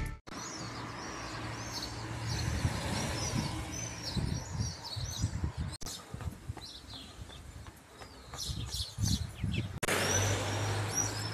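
Small birds chirping over the low rumble of street traffic. A steady low drone of traffic comes in near the end.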